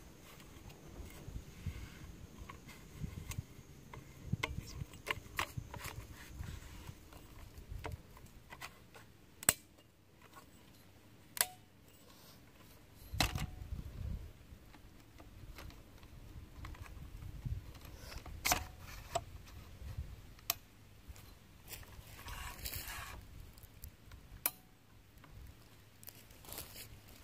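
Sharp clicks now and then as tarp poles are clicked into place to set their length, over patches of low rumbling.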